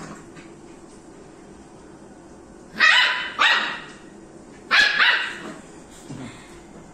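Rottweiler puppy giving three high-pitched barks at a broom being swept at it: two in quick succession, then a third about a second and a half later.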